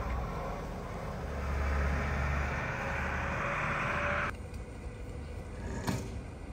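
Road traffic: a vehicle driving past with a low engine and tyre rumble that swells and then cuts off suddenly, leaving a quieter street background with a single sharp click.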